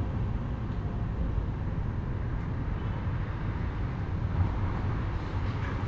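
Steady low background rumble with no distinct knock or bang.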